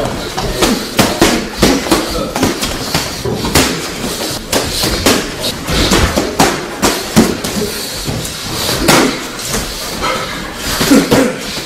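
Boxing sparring: gloved punches landing on gloves, headgear and bodies, an irregular run of sharp thuds, several a second in flurries.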